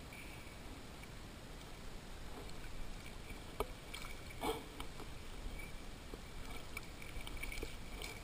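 Water lapping and sloshing around a swimmer's mask at the surface, a steady wash with small splashes and two sharper ones about three and a half and four and a half seconds in.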